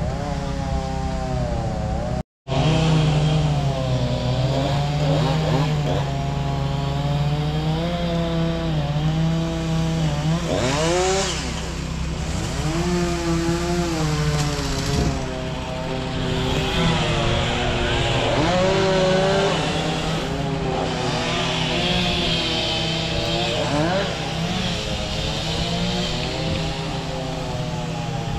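Chainsaw engine running, its pitch rising and falling over and over as the throttle and load change. The sound cuts out completely for a moment about two seconds in.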